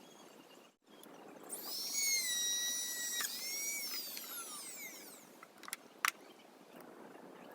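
A small power-tool motor whines up, runs for about two seconds with a brief dip, then winds down with its pitch falling. A sharp click follows near the end.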